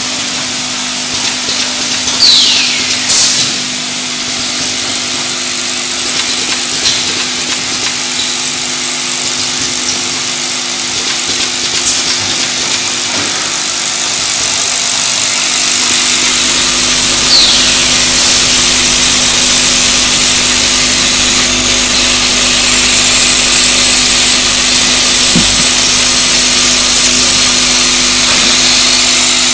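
Automatic small-bottle filling and capping line running: a steady machine hum under a dense hiss, with two short falling squeaks. It gets louder about halfway through and stays loud.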